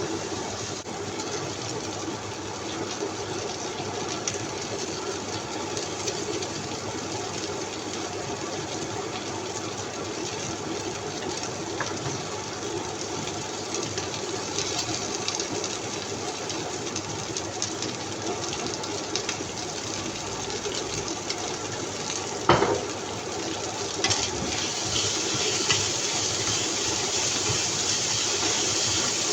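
Steady hiss of food cooking on the stove, with one sharp knock, like a utensil on the pan, about three-quarters of the way through. The hiss grows brighter and louder near the end.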